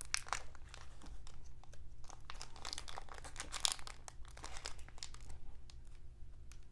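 Foil wrapper of a Score football card pack crinkling and tearing as hands work at it to get it open, in irregular crackles that come thickest about halfway through and thin out near the end.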